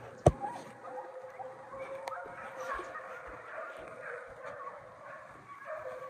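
Several hounds baying together, their wavering calls overlapping throughout. A single sharp click just after the start is the loudest sound.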